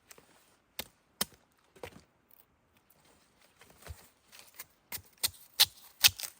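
Chopping: sharp strikes of a blade cutting into plant stems or wood. A few spaced-out blows come first, then a quicker run of harder blows near the end.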